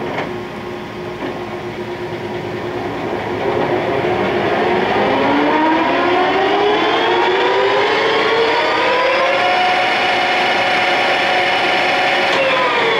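Geared headstock of a 1968 Clausing Colchester 8050 engine lathe running up to speed. After a click at the start, the gear whine rises in pitch over several seconds, holds steady at speed, and begins to fall away right at the end as the spindle slows.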